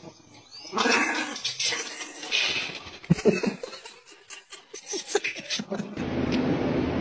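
A puppy vocalizing in several short sounds. Near the end a steady low hum sets in.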